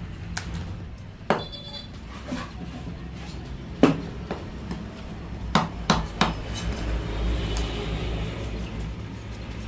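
A large knife scraping scales off a whole rohu fish on a wooden chopping block. Several sharp knocks come as the blade and fish strike the wood, the loudest about four seconds in, followed by three more in quick succession.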